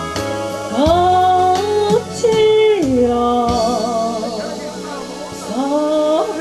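A song performed live: a singing voice holds long notes that slide up and down between pitches, over steady instrumental accompaniment.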